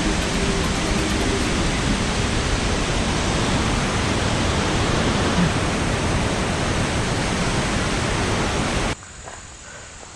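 Waterfall in heavy post-storm flow: a steady loud roar of rushing water that cuts off suddenly near the end.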